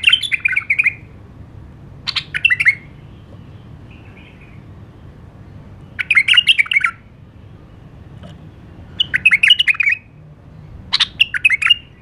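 White-eared bulbul singing: five short phrases of quick warbled notes, each under a second long, a few seconds apart.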